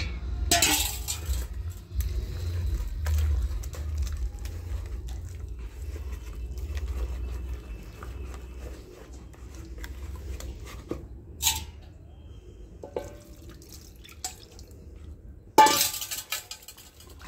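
Gram-flour batter being mixed by hand in a plastic bowl, with a continuous wet squelching and sloshing. A few sharp knocks of bowls against the counter break in: one just after the start, one about eleven seconds in, and the loudest near the end.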